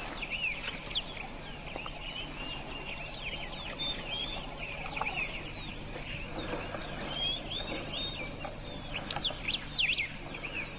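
Small birds chirping and twittering without pause, many short up-and-down calls overlapping, busiest near the end, over a faint steady low hum.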